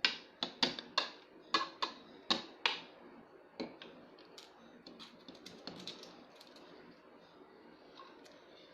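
Plastic toy food pieces clacking as they are handled and set down: about eight sharp clicks in the first three seconds, then fainter scattered ticks.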